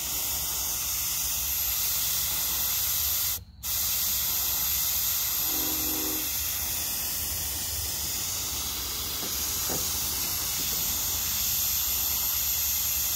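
Gravity-feed paint spray gun hissing steadily as compressed air sprays lacquer thinner through it to flush out the leftover paint. It breaks off briefly about three and a half seconds in, then runs on until it stops suddenly at the end.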